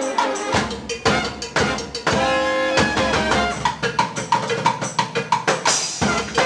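Live band music: tenor and baritone saxophones playing over a fast, driving drum-kit beat. A bit past two seconds in, the horns hold one long note for about half a second.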